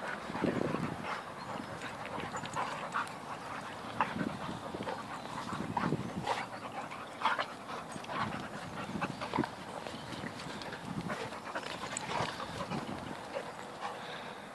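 Two yellow Labrador-type dogs play-fighting, panting and vocalising in irregular short bursts as they wrestle and chase.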